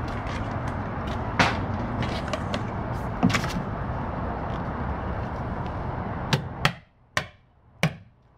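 Sharp taps and clicks from hands handling a flashing corner against a plastic junction box and the wall, heard over a steady rushing background noise. The noise drops away near the end, leaving four crisp taps.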